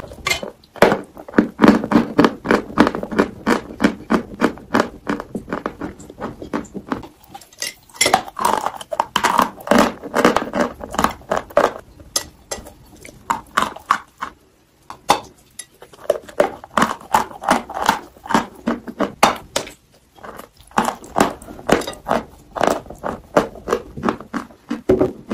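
Close-miked chewing of watermelon: rapid crisp crunching bites, in bursts with short pauses between mouthfuls.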